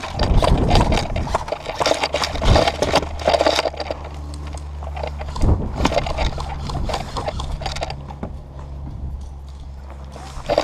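Footsteps on dry dirt with gear and a rifle rattling while walking, a series of sharp clicks and knocks that is densest in the first few seconds and thins out later, over a steady low rumble.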